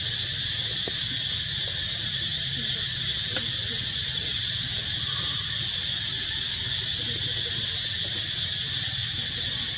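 Steady, high-pitched drone of forest insects, with one faint click a little over three seconds in.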